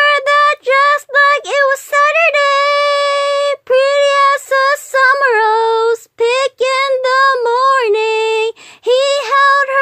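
A high female voice, possibly a child's, singing a song unaccompanied, in connected notes with a few held for about a second and slides between them.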